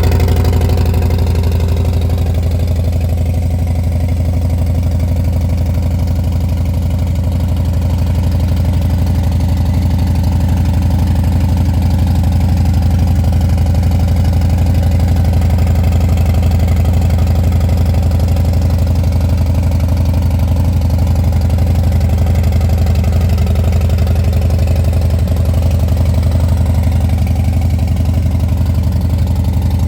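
Harley-Davidson 2022 Low Rider ST's Milwaukee-Eight 117 V-twin idling steadily, warming up on fresh oil just after a three-hole oil change.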